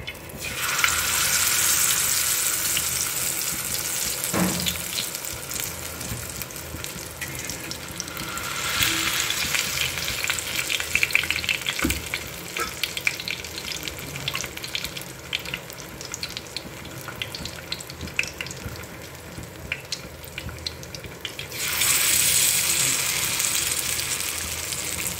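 Whole fish coated in chilli-masala paste sizzling and crackling as they shallow-fry in hot oil on an iron griddle (tawa). The sizzle flares loud as the first fish goes in, about a second in, swells again a few seconds later, then flares again near the end as the second fish is laid alongside.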